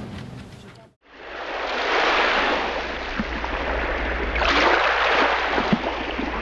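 Sea water washing, swelling twice, over a steady low rumble; it begins right after a brief gap of silence about a second in.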